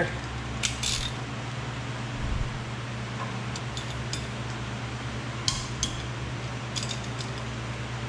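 Metal tool clinks as a 14 mm socket and ratchet are worked on the lower caliper bolt of a rear disc brake: a few short, sharp clinks scattered through, over a steady low hum.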